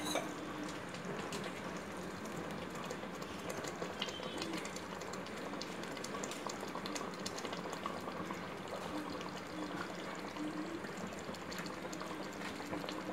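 Tomato masala thinned with freshly added water simmering in a pot, with a steady faint sizzling and bubbling. A single sharp knock right at the start.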